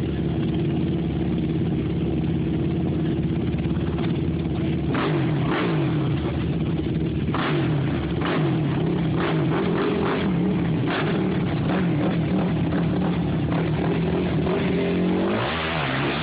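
ATV engine running under load and revving as it climbs a muddy creek hill, its pitch wavering up and down. A run of sharp knocks and clatters comes in the middle, and the engine revs higher near the end.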